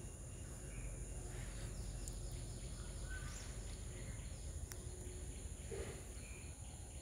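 Faint outdoor ambience: a steady background hum with a continuous high insect-like drone and a few faint bird chirps.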